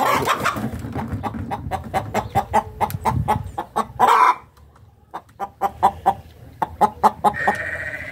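A hen's egg-laying cackle: a rapid run of short clucks with a louder, drawn-out squawk about four seconds in, a brief pause, then the clucking starts again. It is the call a hen gives right after laying an egg.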